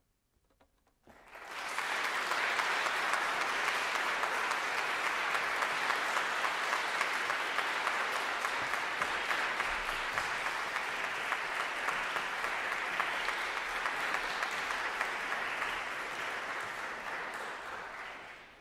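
Audience applauding: clapping breaks out about a second in, holds steady, and dies away near the end.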